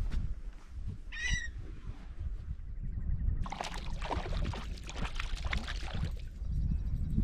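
A hooked fish thrashes and splashes at the lake surface close to shore for a few seconds, starting about three and a half seconds in, over a steady low rumble of wind on the microphone. A short squawking call sounds about a second in.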